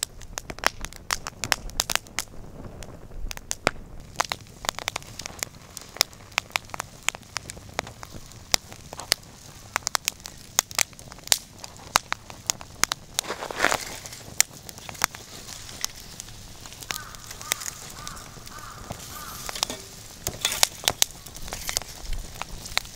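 Split-log wood fire crackling in a steel fire bowl, with a constant run of sharp, irregular pops and snaps over a soft hiss of flame.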